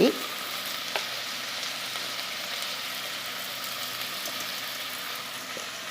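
Onion, tomato and freshly added red chilli powder sizzling steadily in coconut oil in a pan, with a single light tap about a second in.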